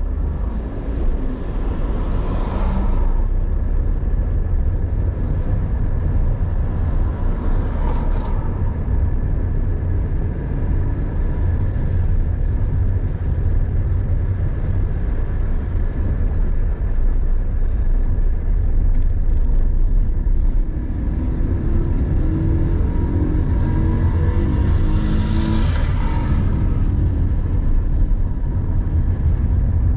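Car driving on town streets, heard from inside the cabin: a steady low rumble of engine and tyres, with a few brief swells as other traffic passes and the engine note shifting pitch late on.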